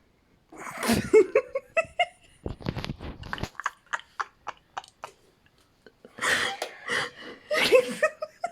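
Non-speech sounds from a person's voice and mouth: two breathy, pitched bursts about five seconds apart, with a run of short clicking pulses between them.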